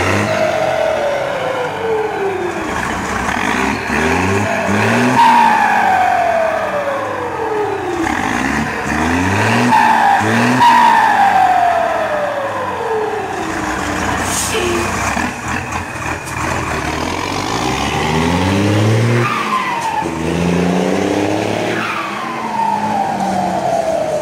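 Mercedes-Benz 1721 turbo-diesel engine revved again and again while standing, its Garrett A/R .84 turbocharger fitted with a "pente" so that it sings. After each rev a loud whistle glides down in pitch as the turbo spools down, about six times.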